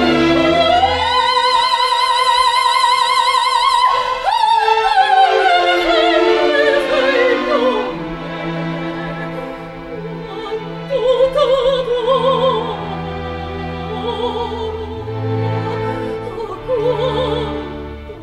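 Opera love duet with orchestra. About a second in, a voice rises to a high note held with vibrato for about three seconds, then the line falls away, and softer singing continues over sustained orchestral chords.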